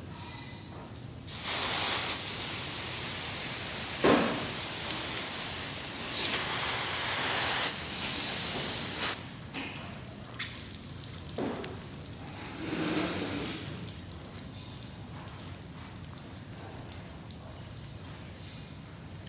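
Water hose spraying onto a fire engine's body, a loud steady hiss that starts about a second in and shuts off suddenly about eight seconds later. After that, water drips and trickles off the truck onto the floor.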